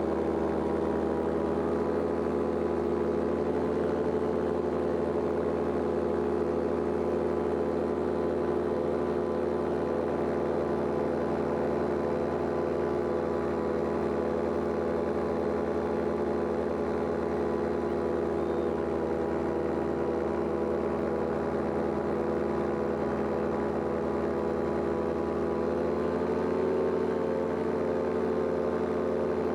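Paramotor engine and propeller of a powered paraglider running steadily in flight, its pitch rising a little near the end.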